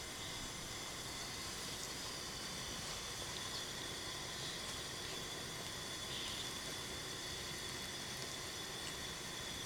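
Steady low hiss of room noise, with a few faint soft rustles as kittens wrestle on a rug.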